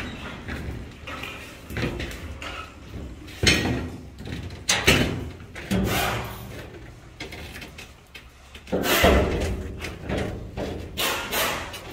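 Several heavy bangs and thuds at uneven intervals, the loudest about three and a half, five and nine seconds in.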